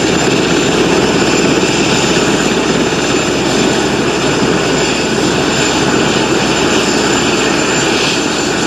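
Fire department rescue helicopter running steadily overhead: a loud, unbroken rotor and engine noise with a thin high whine over it.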